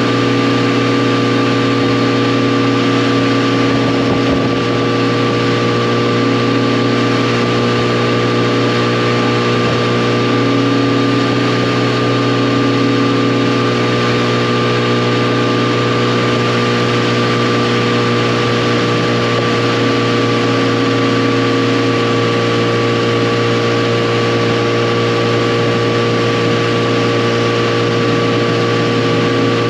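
Yamaha FJR1300's inline-four engine running at a steady speed while the motorcycle cruises, its pitch holding level throughout, under a steady rush of noise.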